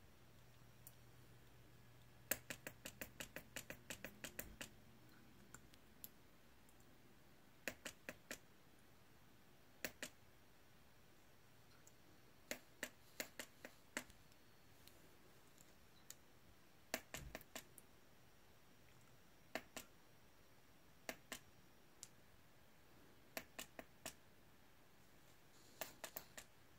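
Plastic trigger spray bottle being pumped for the iguana to drink from: sharp clicks in quick runs, about ten in a row early on and then groups of two to four with pauses between.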